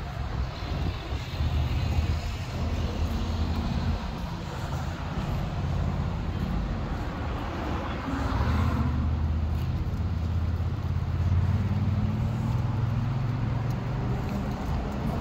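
Street traffic: motor vehicles running and passing, with a deep engine drone that comes and goes and one vehicle passing close about eight seconds in.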